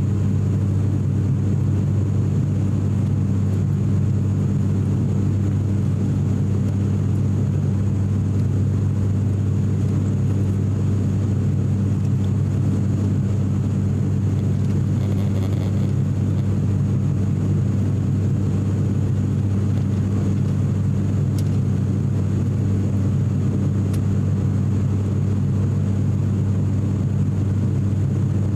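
Cabin drone of an ATR42-600 turboprop in flight: the propellers and engines make a steady low hum with a deep, even tone and a rushing noise that holds constant throughout.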